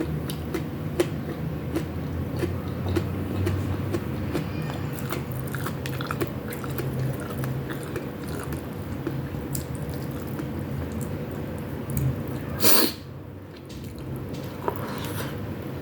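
Close-miked chewing and biting by a person eating, with many small wet mouth clicks, over a steady low hum. One brief loud noise about thirteen seconds in.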